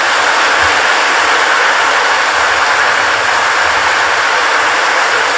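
Large audience applauding, a steady dense clapping.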